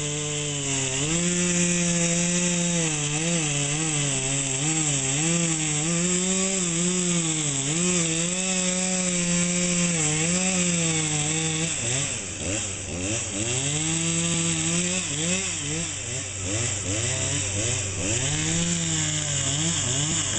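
Chainsaw cutting into the trunk of a Siberian elm, its engine pitch wavering up and down under load. About twelve seconds in the pitch dips and surges several times before it settles back into a steady cut near the end.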